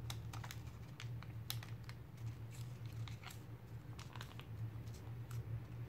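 Origami paper being folded and pressed by hand: faint scattered crinkles and small clicks as the creases are worked, over a low steady hum.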